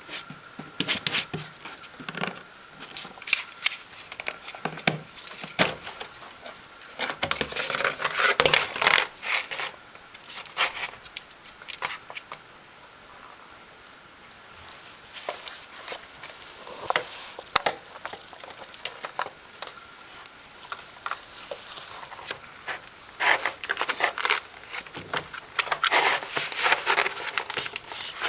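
A ferret rummaging and scrabbling: irregular rustling, crinkling and sharp clicks of claws and objects, in busy bouts about a third of the way in and again near the end, with a quieter stretch between.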